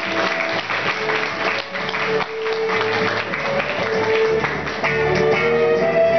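Instrumental background music with steady held notes, over applause that thins out about five seconds in.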